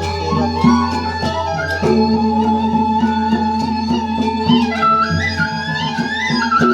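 Traditional music: a held, flute- or fiddle-like melody stepping from note to note over a steady low drone, with light percussion ticking at an even pace.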